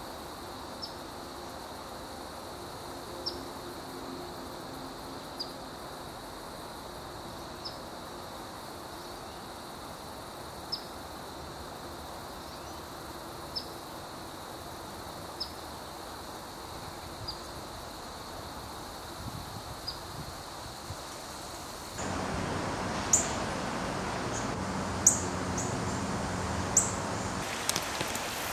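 Outdoor marsh ambience: a steady high-pitched insect drone, with a short high chirp about every two seconds. About 22 seconds in, the sound cuts to a louder, noisier background with a few sharp, very high chirps.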